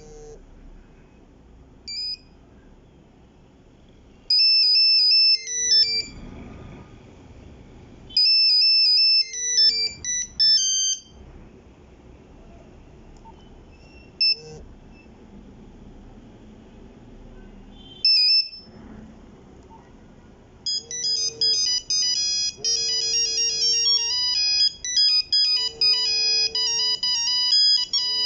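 Nokia 3310 monophonic ringtones: short beeping melody snippets start and cut off several times with pauses between. About three-quarters of the way in, a fast ringtone melody plays on without stopping.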